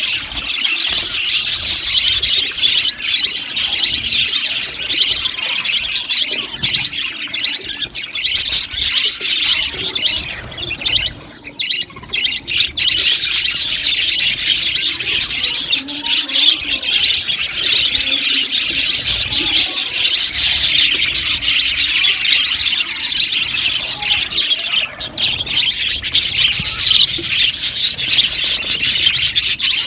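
A flock of budgerigars chattering and chirping continuously, many birds at once, with a short lull about eleven seconds in.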